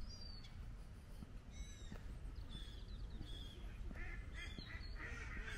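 Waterfowl calling: a string of short calls, busiest near the end, over a steady low rumble.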